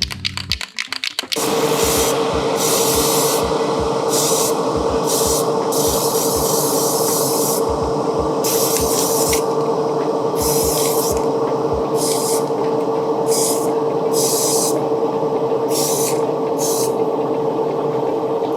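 Airbrush compressor starting up about a second in and running with a steady hum, while the airbrush sprays paint in about a dozen short hissing spurts.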